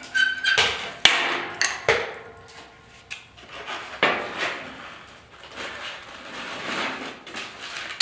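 Metal clamp and sheet-steel bracket being handled and clamped together: several sharp knocks and clinks, with a short metallic ring near the start and scraping and rustling in between.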